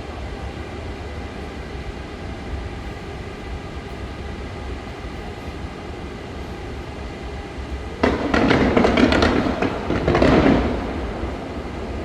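Fireworks display: a steady low rumble, then about eight seconds in a sudden loud volley of rapid crackling. The volley swells again a couple of seconds later and then fades.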